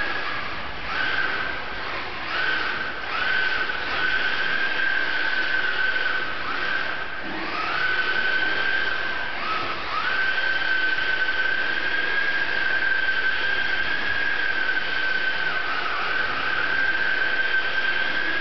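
Electric motor of a Tamiya TT-01 RC drift car whining at a high pitch. The pitch rises and falls away with each throttle blip, several times in a row, then holds high and steady through the second half, over a steady hiss.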